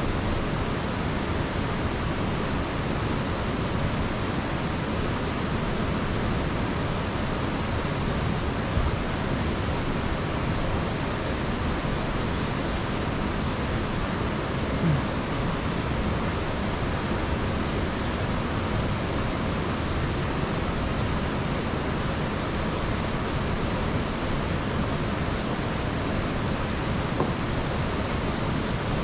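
Steady, even rushing noise, with a few faint clinks of a fork against a bowl as a man eats.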